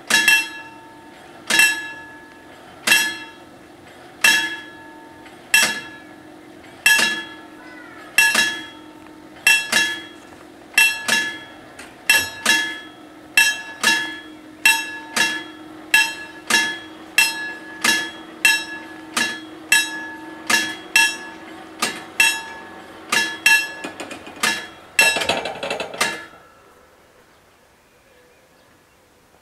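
Electric warning bells of an Italian FS 64 level crossing ringing in regular strokes a little over a second apart, later in pairs, over a steady hum while the barriers lower. About 25 seconds in there is a short rattle, and the bells stop soon after.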